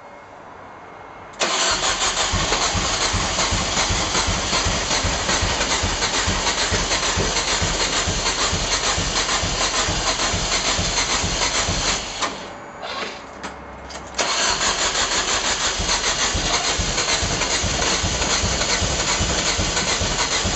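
MEV Rocket kit car's engine cranking on its starter motor without firing, a crank-no-start. It is an even, rapid chugging that begins about a second and a half in, breaks off for about two seconds near the middle, then cranks again.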